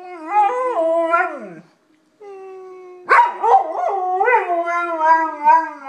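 Golden retriever howling: a wavering howl that slides down in pitch at its end, then after a short pause a louder, longer one that rises and falls. In the pause a quieter steady held note is heard.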